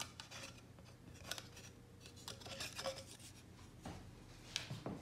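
Faint scraping, rubbing and light clicks of a freshly milled cut-out letter being handled and worked free of the sheet it was cut from, with a sharper click about four and a half seconds in.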